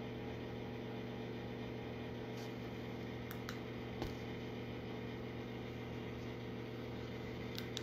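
Steady low hum with a few faint clicks, one slightly louder about four seconds in.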